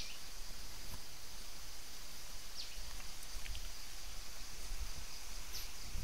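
Woodland ambience: a steady high insect drone, with a bird giving a short falling call three times, about every three seconds.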